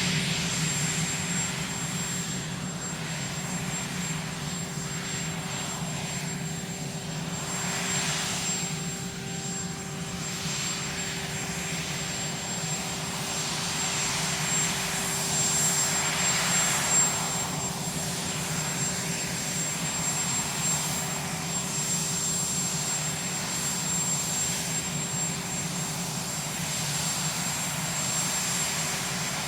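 Aircraft turbine engines running steadily: a constant high whine over a low hum and rushing noise, swelling slightly now and then.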